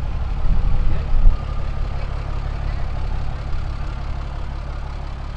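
Diesel engine of a large off-road wrecker idling steadily and low-pitched, with a thump just over a second in.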